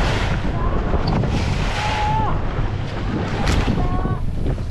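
Wind buffeting the microphone aboard a fishing boat at sea, over a steady rush of waves, with a few brief faint whistle-like tones.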